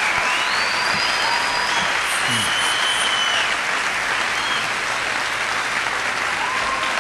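A live audience applauding steadily at the end of a song.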